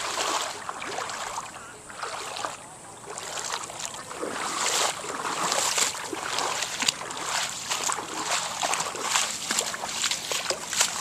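Floodwater sloshing and splashing in uneven surges, with short crackling splashes throughout.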